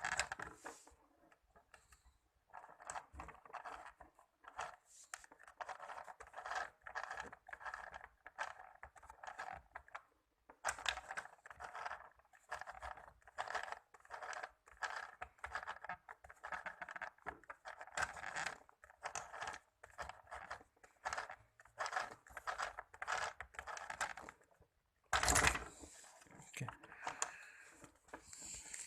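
Mini sewing machine stitching a test seam after its thread tensioner has been tightened, its needle mechanism clicking about three times a second. The stitching breaks off briefly about a third of the way in, and there is one louder knock near the end.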